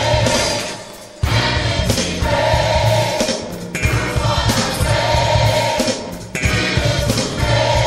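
Gospel music: a choir singing over instrumental backing with a strong bass line, dipping briefly about a second in.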